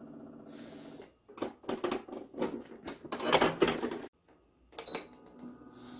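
Bokuk evaporative air cooler on a test run: a burst of loud clattering as its fan starts, cut off suddenly about four seconds in, then a short high electronic beep as the unit resets. The power cuts out because the 12 V 25 W DC fan motor draws more than the 1.5 A adapter fitted to the modified power board can supply.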